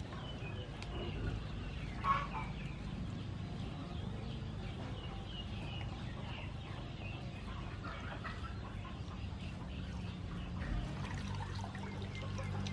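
Chickens clucking now and then, with one louder call about two seconds in. Under them is the soft wet squishing of hands squeezing grated coconut in water to press out coconut milk.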